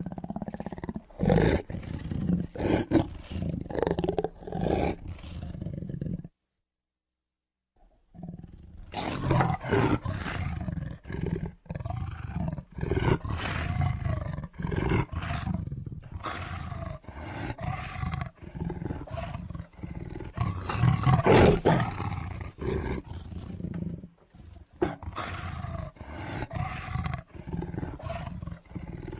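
Tiger roaring again and again in rough, repeated calls, with a silent pause of about a second and a half some six seconds in.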